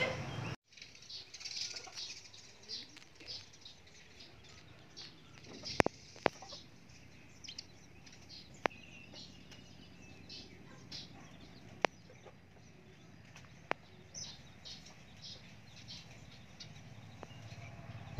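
Small birds chirping faintly and often, with a handful of sharp clicks scattered through.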